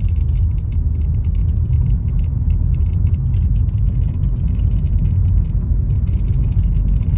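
Inside a 2020 Honda City's cabin on the move: a steady low road-and-engine rumble, with light, irregular rattling ticks over it. This is the cabin rattle the owner hears from the right side of the car.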